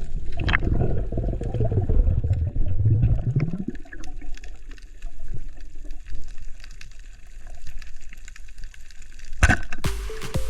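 Water rushing and bubbling around a camera in the sea: a loud churning rumble for the first few seconds, then softer sloshing, with a sharp splash-like burst near the end.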